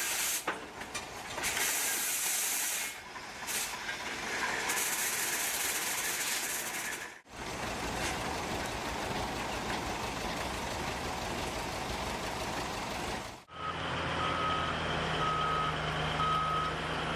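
Heavy machinery at work, heard across three cuts: a hissing, noisy stretch, then an even mechanical rumble, then a reversing alarm beeping steadily over a running engine.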